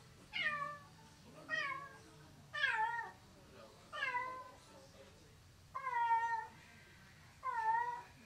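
Domestic cat meowing six times, about one call every second and a half, each call falling in pitch and the last two drawn out longer. These are the repeated calls of a cat left alone in the room, which the owner calls its lonely crying, a sign of separation anxiety.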